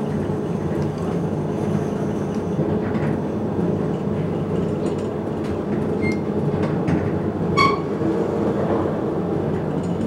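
Glass elevator cab running steadily as it descends, a constant hum and rumble. A single short chime sounds about three-quarters of the way through.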